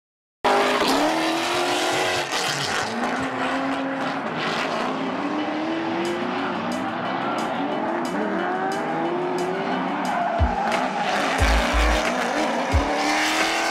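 Drift cars' engines revving up and down as they slide, with tyres squealing. About ten seconds in, a hip-hop beat with heavy bass kicks comes in over it.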